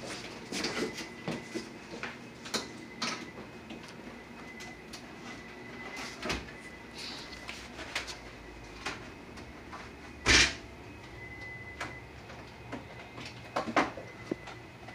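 Scattered light knocks and rustles of handling, with one much louder thump about ten seconds in and a few quick knocks near the end. A faint steady high tone comes and goes underneath.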